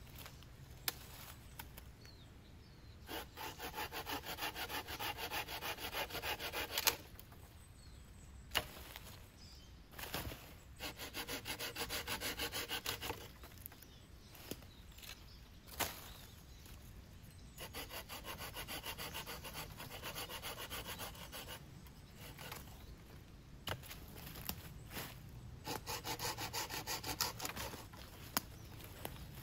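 Wood being worked by hand with fast back-and-forth scraping strokes, in four bouts of a few seconds each, with a few single sharp taps between them.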